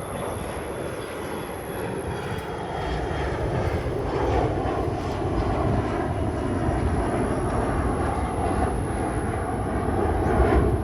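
Aircraft engine running at the airport, a steady noisy drone that swells slightly a few seconds in.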